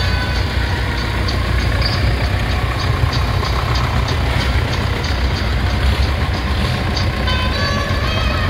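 Vintage Nuffield tractor engines running as the tractors drive past, a steady low engine note.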